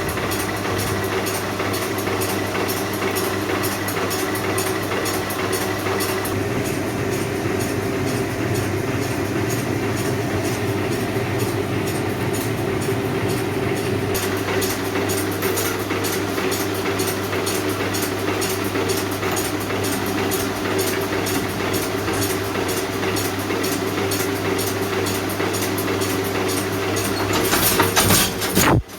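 Steady running of blacksmith's workshop machinery: a constant low hum with fast, dense clicking over it, growing louder and harsher just before the end.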